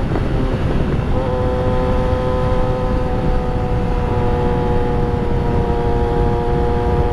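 Yamaha R3's 321 cc parallel-twin engine running at high revs under hard riding, its note breaking briefly about a second in and then holding, sinking slightly in pitch, over heavy wind rumble.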